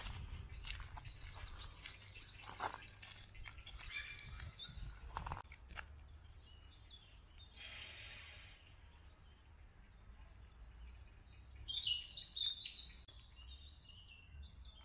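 Faint outdoor ambience with small birds singing and chirping, a run of high, quickly repeated chirps in the second half over a low rumble.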